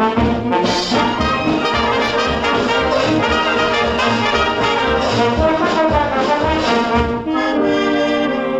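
Brassy orchestral theme music, with trombones and trumpets over a bouncing bass line; about seven seconds in it changes to long held chords.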